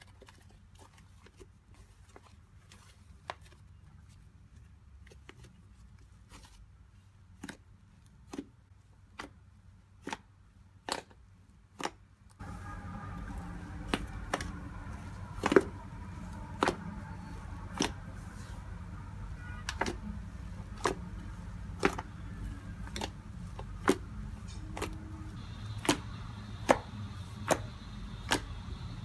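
Red fluffy slime made from glue and face cream being stretched and then poked and squeezed by fingers, giving sharp pops and clicks. The pops are sparse at first, then come about once a second and louder in the second half.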